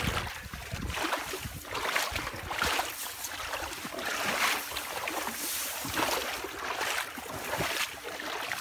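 Dry grass and reeds rustling and brushing against the phone, a series of irregular swishes about once a second, as it is pushed through the ditch-bank vegetation.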